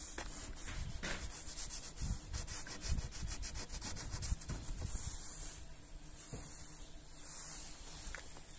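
Fingers scratching and rubbing the frost that coats a car windshield, with a quick run of short scraping strokes a couple of seconds in.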